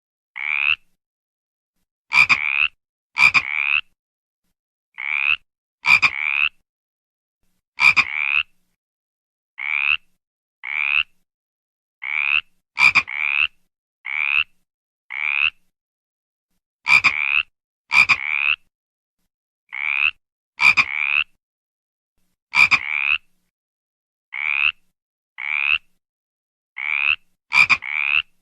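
A frog croaking over and over in short calls of about half a second each, mostly in pairs, with silence between them. Each call swells in loudness, and some open with a sharp click.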